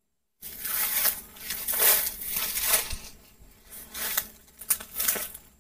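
Rustling and crunching of dry leaves and undergrowth in irregular bursts, starting about half a second in.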